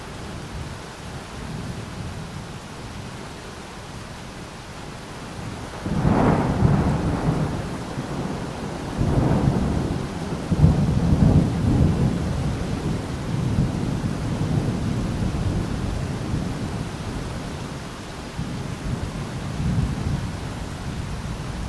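Rain and thunder: a steady rain-like hiss, then a sudden crack of thunder about six seconds in, followed by long rolling low rumbles that ease off near the end.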